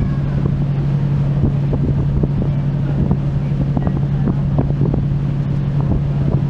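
Steady low drone of a passenger ferry's engines, heard from the deck, with wind buffeting the microphone.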